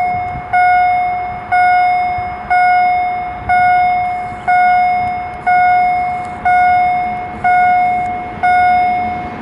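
Railway level-crossing warning bell ringing steadily, one electronic ding about every second, each fading away before the next: the crossing is closed for the approaching train.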